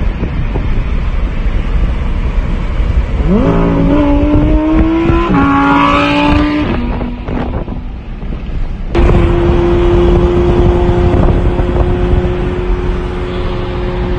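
Lamborghini Aventador's V12 accelerating hard over wind and road noise. About three seconds in its pitch climbs, jumping at upshifts, and fades after about seven seconds. After a sudden cut about nine seconds in, an engine holds a steady high drone.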